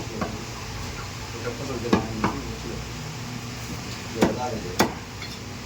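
A metal utensil knocking against cookware about five times, each knock ringing briefly, over a steady low hum.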